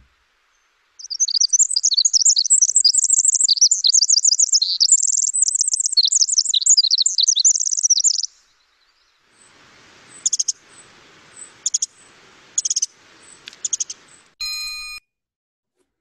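Pacific wren giving a rapid, harsh, high-pitched jumble of notes for about seven seconds. A few sharp single call notes follow over faint background hiss, then a brief steady buzzing tone near the end.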